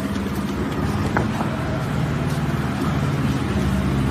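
An engine running steadily with a low, even hum, with a faint knock about a second in.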